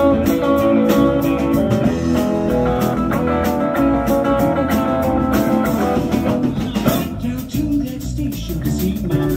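Live rock band playing an instrumental passage: electric guitar over bass and a drum kit with steady cymbal strokes. About seven seconds in, the band drops down and plays quieter.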